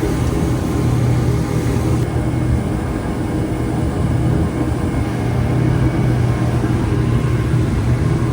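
The engines of a 43-foot Frontrunner boat running steadily under way, giving a loud, even low drone.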